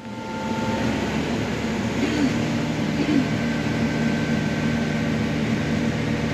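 Farm machinery engine running steadily: a constant drone with a few steady low tones.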